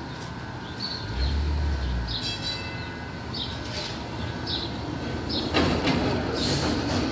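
TTC CLRV streetcar rolling slowly around the curved track: a low rumble about a second in, then a rising rush of wheel-on-rail noise with a brief high squeal near the end. Short high chirps repeat about once a second throughout.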